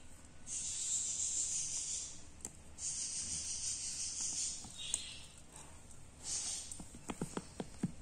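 Baby budgies hissing as they are handled at the nest pot, in four rough bursts of about one to two seconds each. Near the end comes a quick run of about six light taps.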